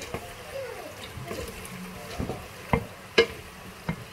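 A wooden spoon stirring penne in a thick tomato-and-cream sauce in a stainless steel pot, a soft wet squelching. Three sharp knocks of the spoon against the pot come in the last second and a half.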